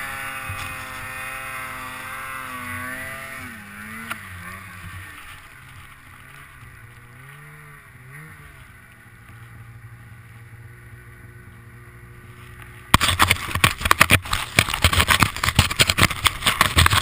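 Snowmobile engine revving up and down as it pushes through deep powder, then running lower and easing off as the sled slows. About thirteen seconds in, a loud crackling, rustling noise suddenly takes over.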